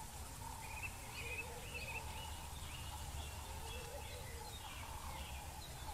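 Outdoor ambience with birds calling: a run of short, high chirps, busiest in the first half, over fainter wavering calls lower down and a steady low rumble.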